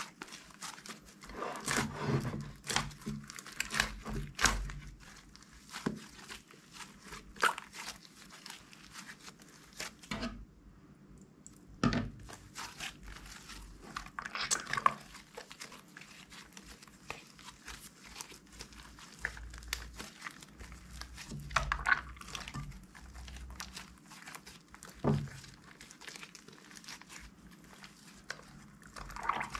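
Hands squeezing, stretching and kneading a large lump of red slime, making irregular squishy crackles and pops as it folds and pulls apart. There is a short quiet pause about ten seconds in.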